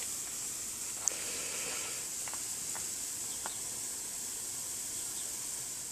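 Water hissing steadily from a running soaker hose, with a few faint ticks.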